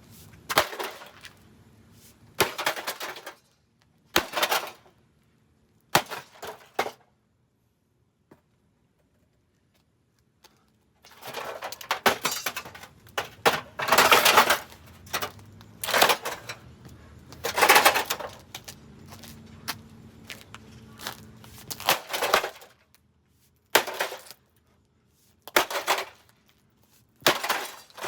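Repeated loud crashing impacts and breaking as an old RV microwave oven is smashed apart, about a dozen blows one to two seconds apart, with a few seconds' pause about a third of the way through.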